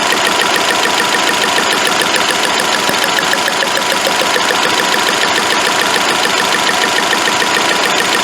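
2009 Nissan Altima engine idling steadily with a fast, even ticking. Its cylinder 2 ignition coil is lifted and leaking spark, the cause of the misfire.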